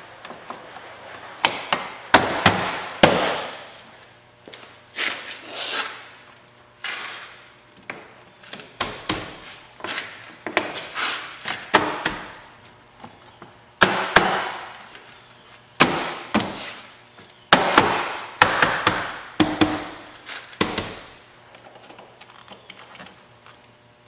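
Plastic trim clips of a 1995 GMC Sonoma's interior door panel snapping into the door as the panel is pressed and struck into place by hand: irregular clusters of sharp knocks and pops, dying away near the end.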